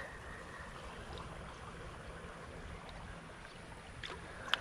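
Small creek's water running steadily, with a few faint ticks and one sharp click near the end.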